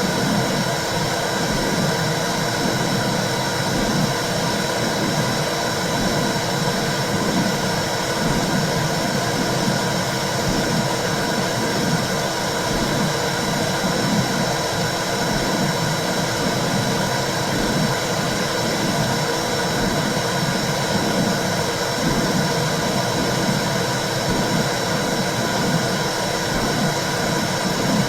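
Womb sound for soothing a baby: a steady rushing whoosh with a soft low pulse repeating about once a second.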